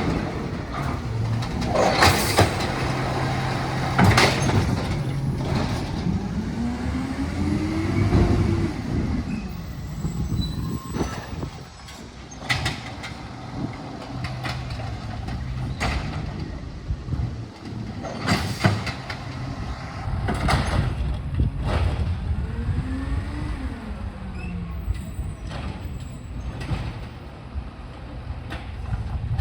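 Recycling truck running through its pickup: the engine hums steadily and twice revs up and back down to drive the hydraulics, while a string of sharp bangs and clatters sounds as a load is lifted and dumped into the hopper.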